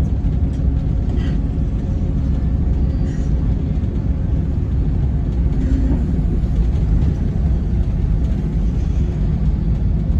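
Scania K450 coach engine running with a steady low rumble while the bus is under way, heard from inside the coach.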